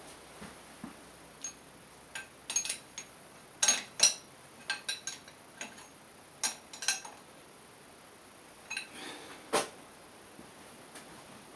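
Metal tools and parts being handled on a workbench: scattered light metallic clinks and taps, the sharpest pair about four seconds in.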